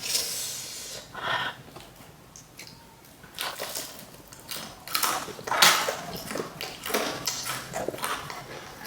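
Close-up mouth sounds of crunching bites and chewing of crispy fried chicken: a string of irregular crackly crunches, the loudest just past the middle.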